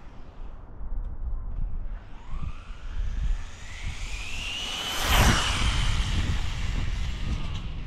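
Whine of the Rlaarlo Croboll 1/14-scale RC car's Castle 6350kv brushless motor climbing steadily in pitch as the car accelerates. It is loudest about five seconds in, then falls away lower. Wind rumbles on the microphone throughout.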